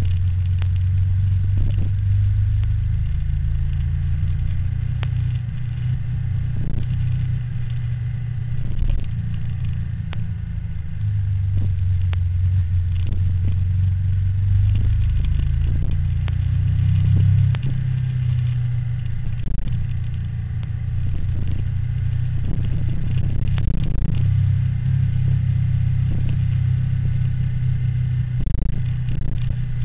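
Motorbike engine running through a ride, its pitch stepping up and down as speed changes, with road and wind rumble underneath.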